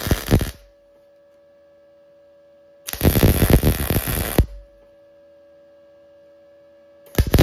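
MIG welding arc from an Arc Captain MIG 200 inverter welder crackling in short bursts. One ends about half a second in, a second runs from about three to four and a half seconds, and a third starts just before the end. A steady hum is left between the bursts.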